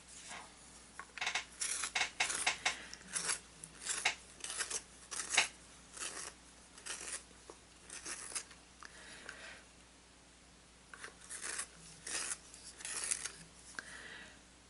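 An orange Prismacolor Premier Verithin colour pencil being turned in a handheld manual pencil sharpener: a run of short rasping scrapes as the blade shaves the wood and the hard, thin lead. The scrapes pause about ten seconds in, then a few more turns follow.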